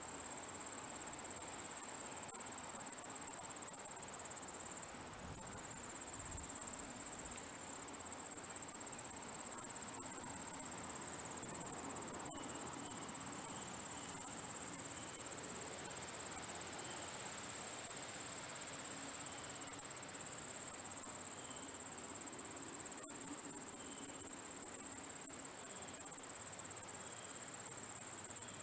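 Crickets trilling in a steady, unbroken high-pitched chorus, with a few faint short chirps now and then.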